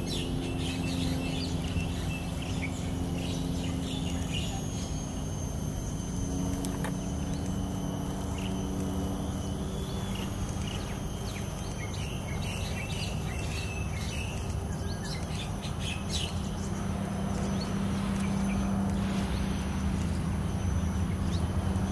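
Birds chirping in short scattered calls over a steady low hum of background noise, with a thin steady high whine in the middle part.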